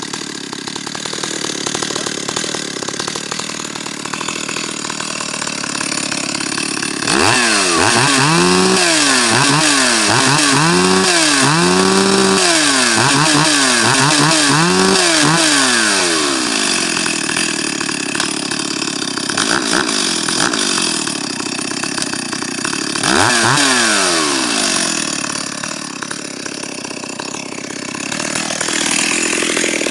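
Stihl 028 AV Super two-stroke chainsaw idling, then revved in a run of about six throttle blips, each rising and falling in pitch, roughly one every second and a half. After a while at idle it is revved once more, then settles back to idle.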